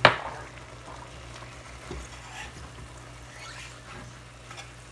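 Ground pork and onions frying softly in a stainless steel pan, with faint scrapes of a metal spatula stirring them. A sharp knock sounds right at the start, and a steady low hum runs underneath.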